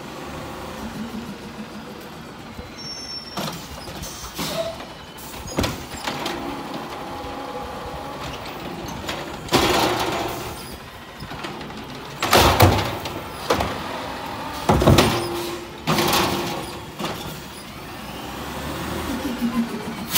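Automated side-loader garbage truck running with its natural-gas engine, punctuated by a series of sharp clanks and bangs from its lifting arm, body and carts. The bangs are loudest about two-thirds of the way through.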